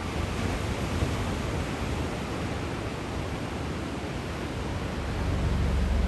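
Steady rush of ocean surf breaking and washing over a rocky shore. Low, sustained music comes in about five seconds in.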